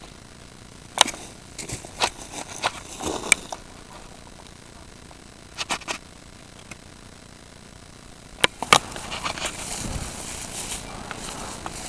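Short scrapes and sharp clicks in small clusters, then a steady rustle from about nine seconds in.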